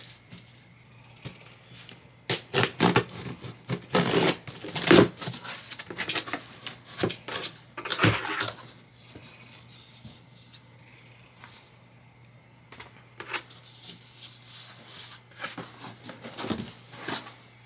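Cardboard shipping box being opened and unpacked: irregular handling noises of cardboard and packing material, busiest in the first half and again near the end.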